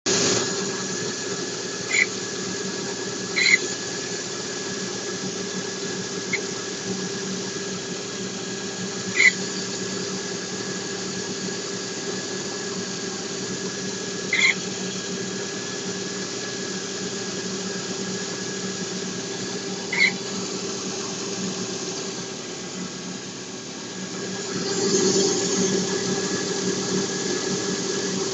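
Lada Priora engine running with a steady whine and short, sharp squeaks at irregular intervals a few seconds apart. It grows louder near the end. This is an unwanted noise that the owner traces to the timing belt drive.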